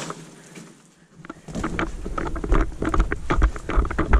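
Hurried footsteps on gravel and rubble from a body-worn camera, with gear rattling and the microphone jolted by each stride. They start about a second and a half in as heavy thumps, roughly two a second, mixed with scattered clicks.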